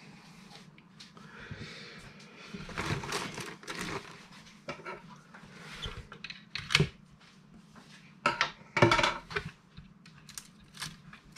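Hands handling a model car and its packaging: irregular small clicks, taps and rustles, with a few louder knocks about three, seven and nine seconds in.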